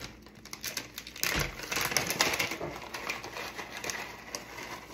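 A small plastic snack bag crinkling as crisp tortilla strips are put into it, a dense run of light crackles and rustles that is busiest about a second and a half in.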